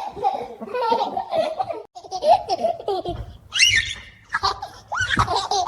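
A baby laughing in repeated giggles and squeals, with a high rising squeal about three and a half seconds in.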